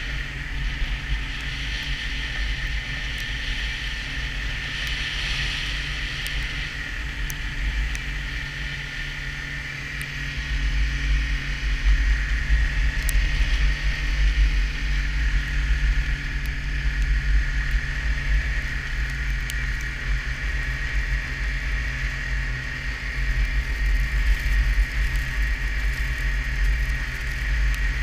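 Snowmobile engine running steadily under way, with a steady high whine over a low rumble and wind buffeting on the microphone. It grows louder about ten seconds in.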